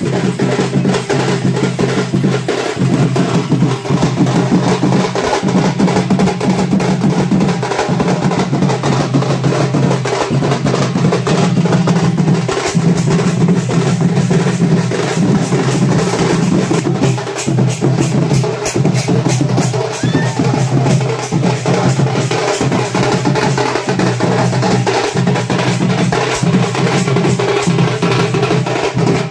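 Music with fast, dense drumming over a low, sustained pitched line that steps between a few notes every couple of seconds.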